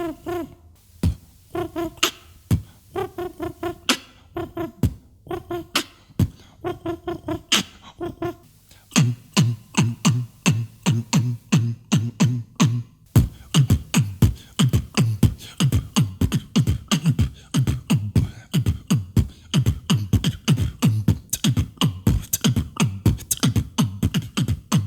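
A man beatboxing with his mouth. For the first few seconds he makes short pitched hoots between sharp clicks. From about nine seconds in, he switches to a fast beat of low bass kicks that drop in pitch, laced with snare-like clicks.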